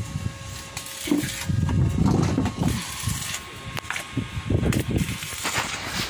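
Wind buffeting the microphone in irregular gusts, with a few faint clicks.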